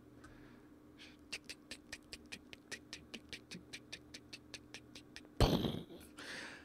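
A rapid, even run of light clicks, about six a second, for roughly four seconds, then a sudden loud whoosh of noise followed by a softer one near the end.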